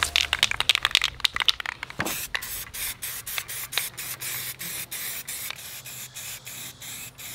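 Aerosol spray can shaken with a rapid rattle of clicks, then from about two seconds in spraying with a hiss broken by many short gaps as it is pressed in bursts.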